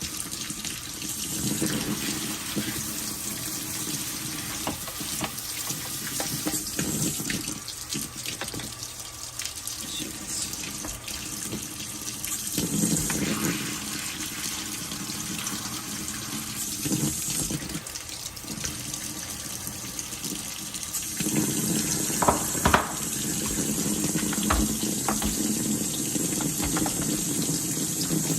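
Water running and splashing as it is flushed down a hole in a wet-dry vacuum to wash out clogged debris, rising and falling in strength, with a few sharp knocks about three-quarters of the way through.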